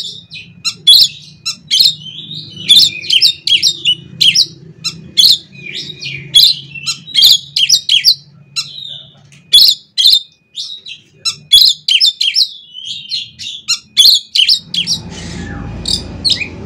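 Oriental magpie-robin (kacer) singing: a fast, dense run of sharp chirps, harsh notes and short whistles, with a faint low hum under it for most of the time. A low rumbling noise comes in near the end.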